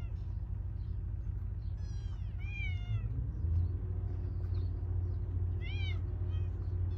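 Kitten meowing: a long, high, falling meow about two seconds in, then a shorter one near six seconds with a faint extra squeak just after, over a steady low hum.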